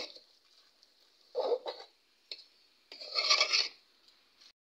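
A steel spoon scraping and stirring a thick mix of rice, lentils and vegetables in an aluminium pot, in two bouts of strokes, with a sharp tap at the very start. This is the mix being sautéed dry before water goes in.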